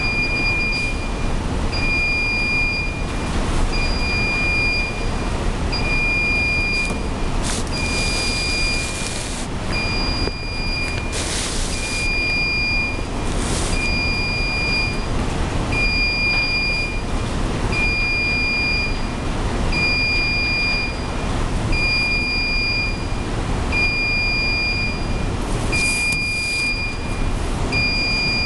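An electronic beeper sounding steadily, a short high beep about once a second, over constant loud background noise. A few brief hissing rustles come through, two near the middle and one near the end.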